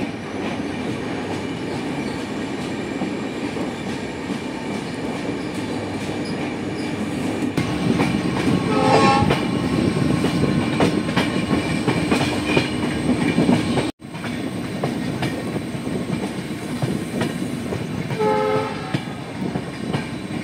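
Passenger train running with a steady rumble of wheels and carriages, first inside a long railway tunnel. A train horn sounds briefly twice, about 9 seconds in and again near the end.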